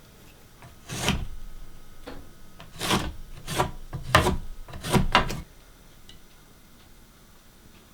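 Short scrapes and knocks of wood, as of 2x6 lumber being handled and slid: about five brief rubs in the first five and a half seconds, then quiet.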